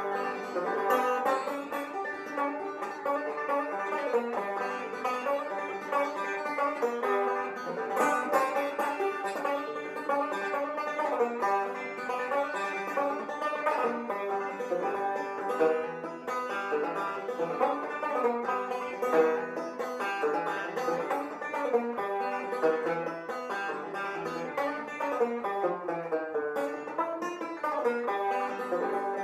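Banjo music: a steady, quick run of plucked notes with no break.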